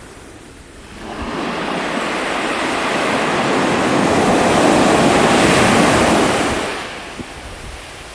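A Pacific Ocean wave breaking and washing up the shore. The rush of surf swells about a second in, is loudest around five to six seconds, and falls away near the end.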